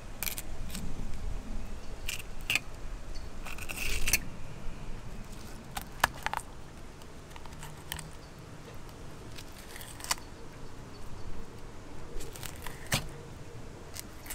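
An 8-inch Dexter fillet knife cutting a yellow jack along the backbone and over the rib cage, giving scattered sharp clicks and scrapes as the blade meets bone and the fillet table. One longer scrape comes about four seconds in.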